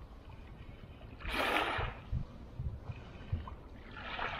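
Water lapping and splashing at the shoreline, with a short louder splash of water about one and a half seconds in and a weaker one near the end. Wind rumbles on the microphone throughout.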